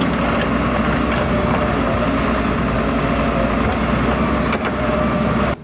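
Diesel engine of a Doosan wheeled excavator running steadily under load while it works the soil with its bucket.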